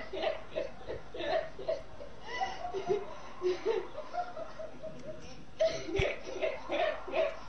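A young woman laughing uncontrollably in quick, rhythmic bursts, easing off briefly about two thirds of the way through and then breaking into laughter again. A short sharp click near the end.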